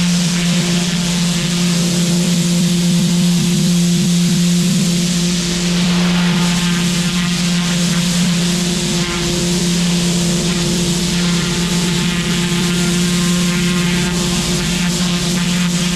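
Engine-driven pressure washer running steadily, a constant engine hum under the hiss of the high-pressure water jet blasting concrete patio slabs.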